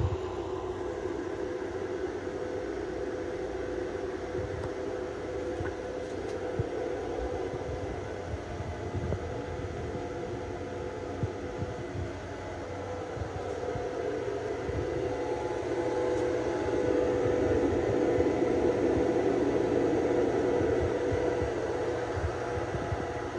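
Steady electrical hum and fan whir from a running off-grid solar inverter, with a few constant tones over a rushing noise. It grows louder for several seconds in the second half.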